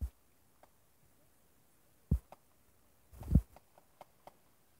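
Scattered firework bangs and pops: a sharp bang about two seconds in, a louder one a second later, and a few faint pops between and after.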